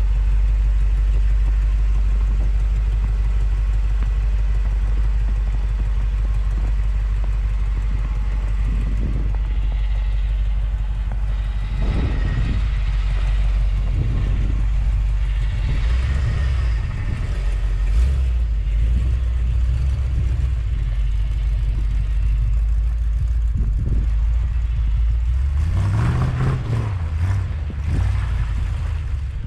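A 1979 Ford F250 pickup being driven, its engine running with a steady deep rumble. About 26 seconds in, the engine revs up briefly.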